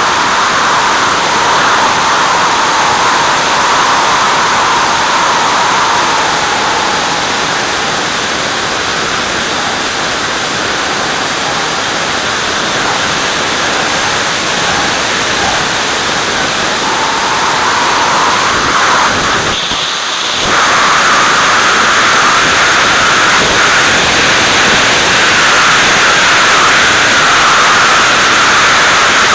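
Steady, loud rush of airflow and engine noise picked up by a camera riding on an aircraft's wing in flight. It drops briefly about two-thirds through, then comes back slightly louder and higher.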